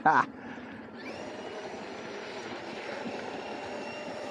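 Traxxas XRT 8S RC monster truck's brushless electric motor whining steadily as the truck runs over the dirt, over a rushing noise.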